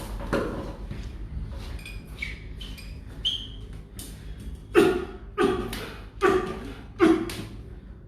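Dull thumps of hands striking a patient's body during bone-setting treatment: a few light knocks at first, then four sharp strikes in a row, about one every 0.7 s, in the second half.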